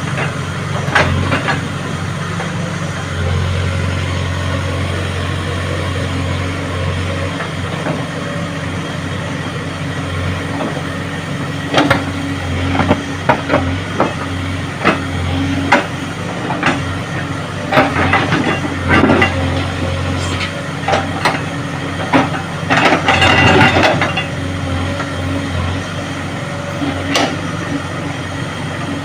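JCB excavator's diesel engine running steadily while it digs, with a string of knocks and clanks from about halfway through and a longer rough clatter of the bucket on earth and stones near the end.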